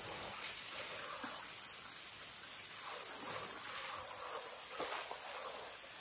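Steady hiss of water spraying from a garden hose onto plants.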